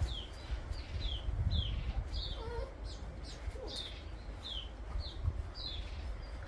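A bird chirping over and over: short, high chirps that slide downward, about one every half second to second, over a low rumble on the microphone.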